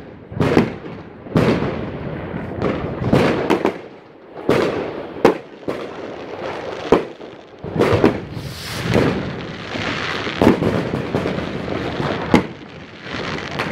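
Fireworks going off: an irregular run of sharp bangs from aerial shells and rockets bursting, often one to two a second, each trailing off in an echo. A hissing stretch comes about nine seconds in.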